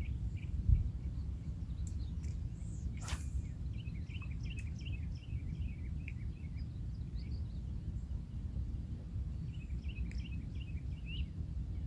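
Low wind rumble on the microphone beside a lake, with small birds chirping in short runs of quick notes. One brief sharp sound about three seconds in.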